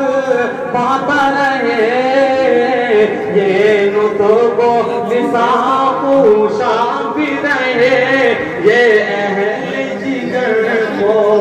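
A man singing religious verse unaccompanied in a chant-like melodic style, with long, wavering held notes.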